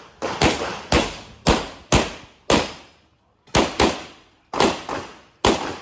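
Rapid fire from a CZ SP-01 Shadow 9mm pistol: about ten sharp shots, mostly in quick pairs about half a second apart, each ringing off briefly, with a pause of about a second near the middle before firing resumes.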